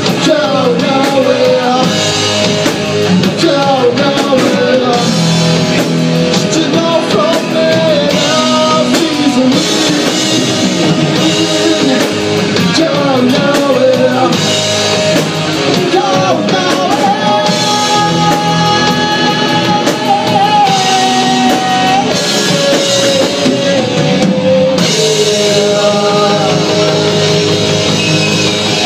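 Rock band playing live: electric guitar, bass guitar and drum kit, with sung vocals over them.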